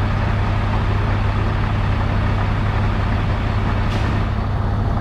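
Diesel engine of a septic vacuum truck running at a steady idle, with a constant low drone and hiss. A single light click about four seconds in.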